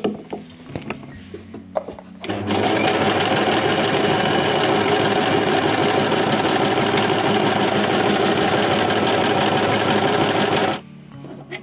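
Singer SM024 electric sewing machine stitching a decorative pattern: it starts about two seconds in, runs steadily for about eight seconds, and stops near the end. A few light clicks come before it starts.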